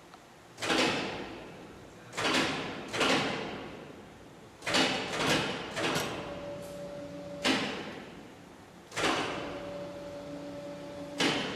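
Machine-tool spindle's tool clamp being worked with a flexible bar: about nine sudden hissing, clanking bursts, each fading over about a second, some in quick succession. A steady whine runs between the later bursts.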